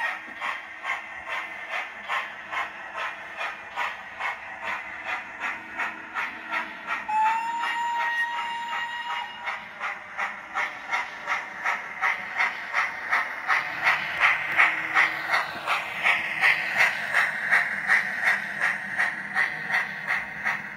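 Sound decoder in a DCC-sound model steam locomotive playing steady exhaust chuffs, a little over two a second, with one whistle blast of about two seconds some seven seconds in. The chuffs grow louder in the second half.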